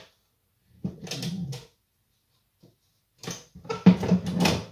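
Plastic housing of an opened sandwich toaster being handled, clattering and scraping in two bursts: one about a second in, and a longer, louder one near the end.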